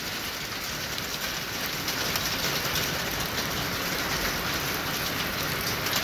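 Small hail mixed with heavy rain pelting down: a steady, dense patter of countless tiny impacts.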